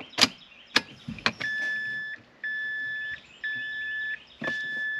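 A few clicks as the ignition key is turned in the 2006 Mazda 3, then a steady high electronic beep that repeats about once a second.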